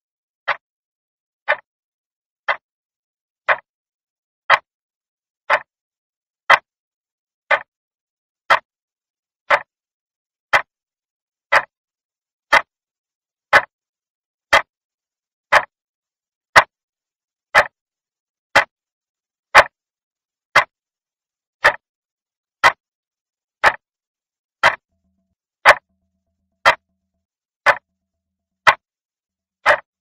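Clock ticking steadily, one sharp dry tick each second with silence between, the ticks growing a little louder over the first few seconds.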